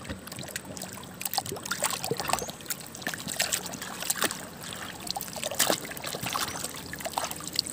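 Water splashing and dribbling as a plastic toy is washed by hand, with many small irregular clicks and splashes.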